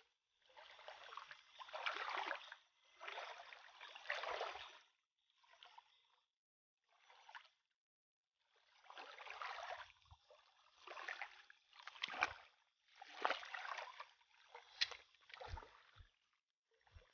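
Bare feet wading through shallow river water: a run of sloshing splashes, each a second or two long, with a short pause in the middle and a few sharp knocks in the second half.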